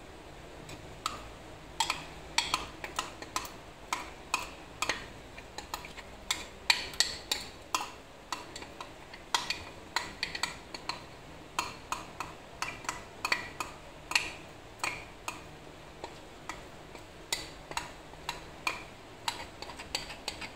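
Metal spoon scraping and clinking inside a container while thick sweetened condensed milk is spooned out of it: an irregular run of short, sharp clicks, about one or two a second.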